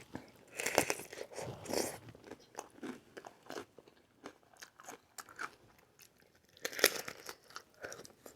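Close-miked eating of aguachile verde: crunching bites and chewing. The sounds come in clusters, dense from about half a second to two seconds in, then scattered clicks, with the loudest crunch about seven seconds in.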